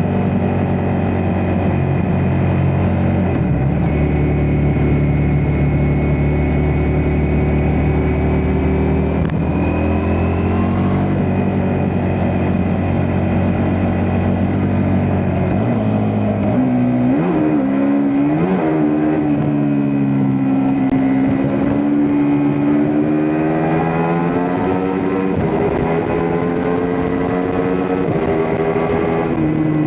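Ducati Multistrada V4S's 1158 cc V4 engine running under way: its pitch holds fairly steady with a few shifts in the first half, then rises and falls again and again in the second half as the throttle is opened and eased.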